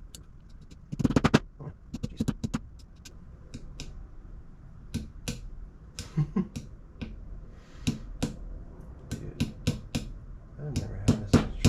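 Sharp hammer strikes on a hub nut socket used as a driver, knocking a new grease seal into a Wilwood front hub: a quick flurry of blows about a second in, then single strikes every half second or so. The tight seal is not yet starting into its bore.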